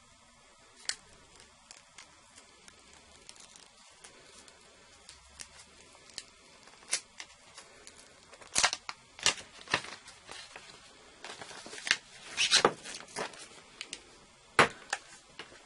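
Paper seal being torn and peeled off a cardboard box: a string of sharp crackling rips and rustles, sparse at first and coming thicker and louder in the second half.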